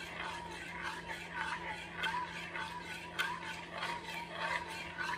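Metal spoon stirring cornstarch into cold milk in a pot, scraping around the pot in a steady rhythm of about two strokes a second, with one sharp clink about three seconds in.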